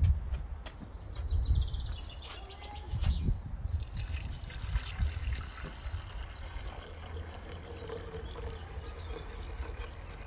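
Water pouring in a steady stream from a plastic jug into an electric kettle, filling it. A few handling knocks come first, and the pour starts about four seconds in.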